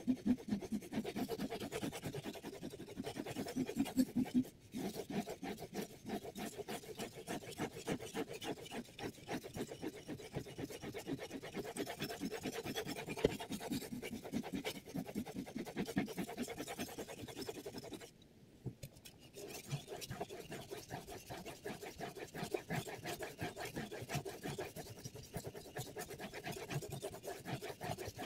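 A steel knife blade grinding across a water whetstone in a Hapstone T1 angle-guided sharpener, in rapid back-and-forth scraping strokes. There is a brief break about 4.5 s in and a longer pause of about a second and a half past the middle.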